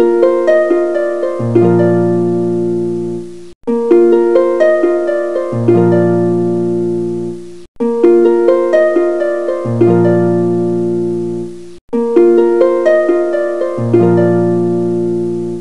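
Background music of plucked notes. A short phrase repeats about every four seconds, with a brief break before each repeat.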